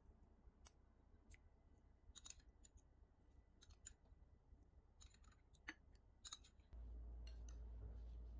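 Faint, scattered clinks and taps of a metal spoon against a glass bowl and a ceramic bowl as milk tea is spooned over shaved ice. About seven seconds in, a steady low hum comes in.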